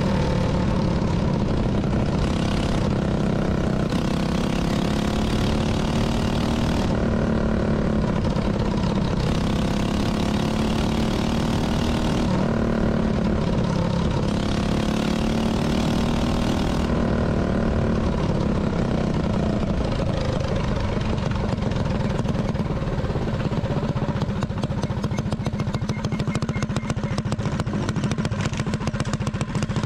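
Small minibike engine running under way, its pitch rising and falling with the throttle, then settling into a slower, uneven putter as the bikes slow down.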